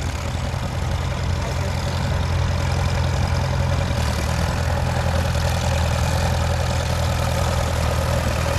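Farmall Super M-TA tractor's four-cylinder engine running steadily under load while plowing, growing a little louder over the first couple of seconds as it comes closer.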